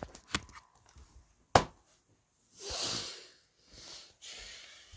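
A sharp knock about a second and a half in, then a hard exhale lasting about half a second, followed by fainter breathing.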